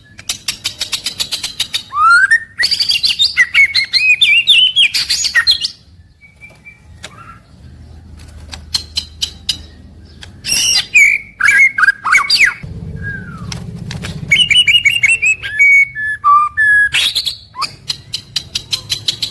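White-rumped shama (murai batu) singing: loud whistled phrases of rising and falling sliding notes, with a quieter pause partway through. Fast runs of sharp ticking calls come at the start and again near the end.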